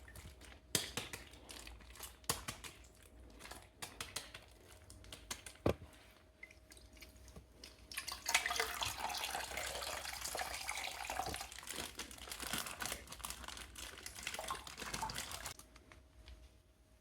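Faint scattered drips and small clicks, then water splashing and running for about seven seconds from around eight seconds in, cutting off suddenly near the end.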